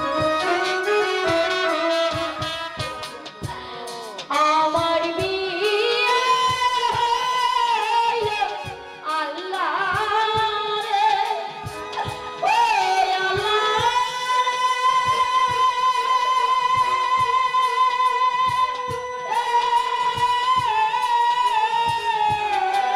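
Music: a woman singing to an instrumental accompaniment, with sliding phrases and then long-held notes from a little past halfway.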